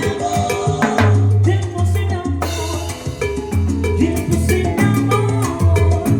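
Salsa music playing with a steady percussion rhythm, bass line and horns.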